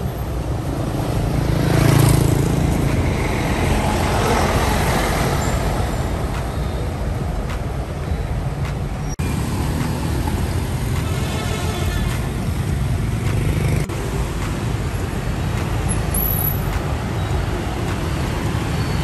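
City street traffic: a large coach bus drives past, its engine and tyres swelling loudest about two seconds in, followed by the steady run of passing cars, buses and motorbikes.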